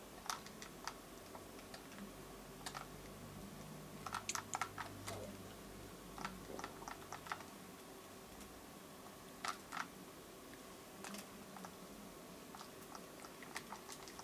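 Faint, irregular small clicks and ticks, some coming in quick little clusters, over a low steady room hum.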